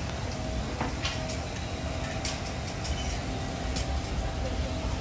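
Steady low rumble of road traffic, with a faint steady hum and a few light clicks.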